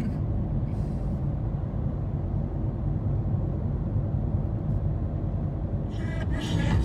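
Steady low road noise inside a moving car's cabin: engine and tyres droning. Music comes in near the end.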